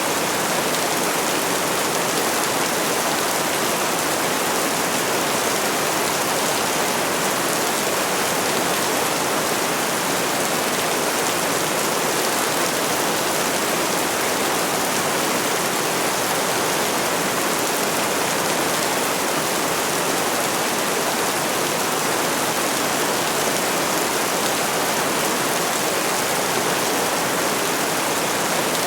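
Steady rainfall: a dense, even hiss of rain that does not rise or fall.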